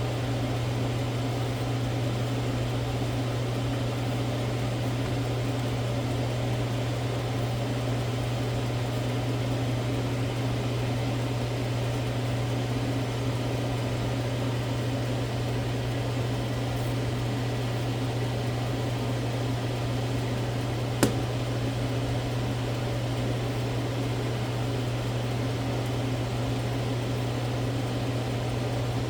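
Steady low hum of a kitchen appliance running, with a single sharp click about two-thirds of the way through.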